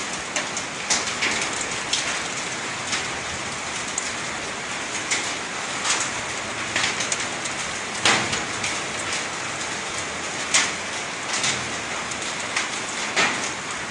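Rain laden with volcanic ash and sand falling: a steady hiss with scattered, irregular louder taps of drops and grit striking nearby surfaces.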